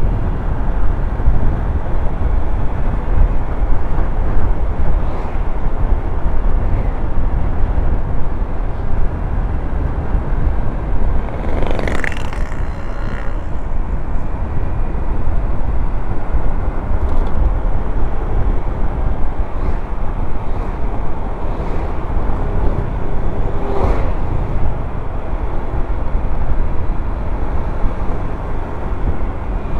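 Riding noise from a Honda Vario 125 scooter on the move: a steady loud rush of wind and road noise, heaviest in the low end, with the engine buried in it. There are two brief louder sweeps, about twelve seconds in and again about twenty-four seconds in.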